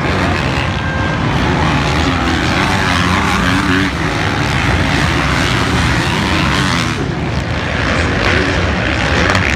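Several motocross bikes racing round the track, their engines buzzing together with the pitch rising and falling as riders rev through the corners.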